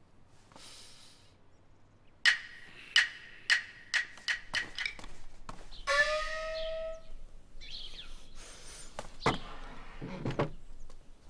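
Chinese opera percussion scene-change cue: sharp wooden clacks that speed up, then a small gong struck once, its pitch sliding upward as it rings for about a second, followed by a few softer knocks.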